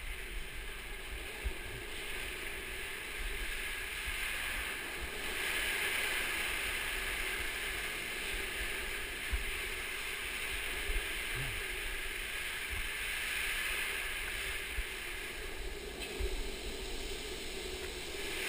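Steady rushing noise of street luge or longboard wheels rolling on asphalt, mixed with wind. It grows louder about five seconds in and holds there.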